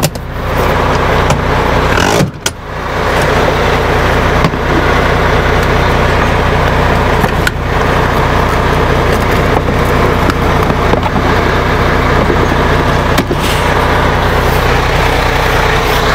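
MAN truck's diesel engine idling steadily, with a few light knocks about two, four and seven seconds in and again near the end.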